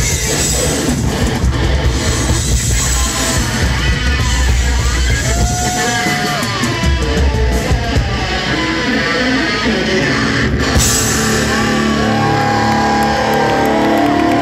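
Live rock duo of electric guitar and drum kit playing loud and fast, the guitar sliding between notes and holding long notes over the drums in the last few seconds.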